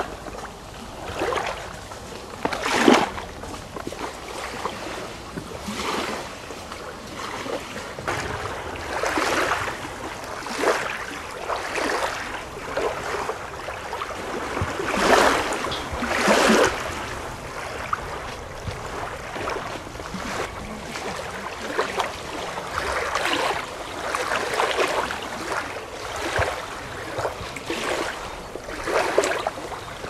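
Small waves lapping against a reservoir bank, splashing in irregular swells every second or two.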